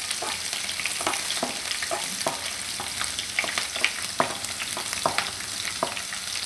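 Chopped garlic and green chillies sizzling in hot oil in a non-stick kadai while a spatula stirs them, with a steady hiss and irregular short clicks and taps from the spatula and spattering oil.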